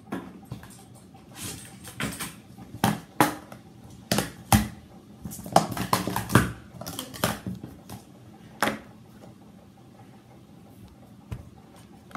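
Blue Speed Stacks plastic sport-stacking cups being stacked into pyramids and brought back down by hand on a stacking mat: a quick run of clacks and taps that stops about nine seconds in.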